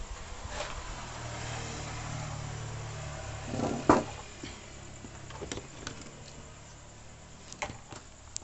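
Low, steady engine hum of a motor vehicle running nearby for the first four seconds or so. A single sharp snap comes about four seconds in, followed by scattered light clicks and taps.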